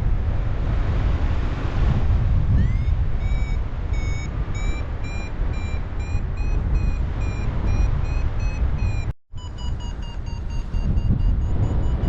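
Paragliding variometer beeping in short repeated tones, about two to three a second, the vario's signal for climbing in rising air, over heavy wind noise on the microphone. The beeps start about two and a half seconds in and come back higher-pitched after a brief dropout near the end.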